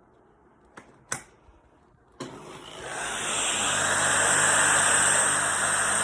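Two sharp plastic clicks as parts of an LG CordZero cordless stick vacuum are snapped back together, then the vacuum is switched on about two seconds in: its motor spins up over about a second to a loud, steady suction noise with a high whine.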